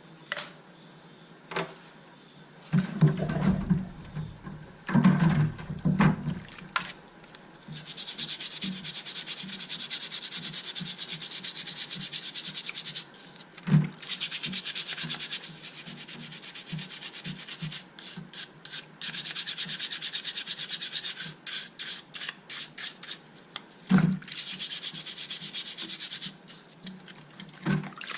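Fast back-and-forth rubbing strokes on a hard surface, in several spells of a few seconds each, like sanding or scrubbing. Knocks and handling noise come before the first spell, and there are single sharp knocks between spells.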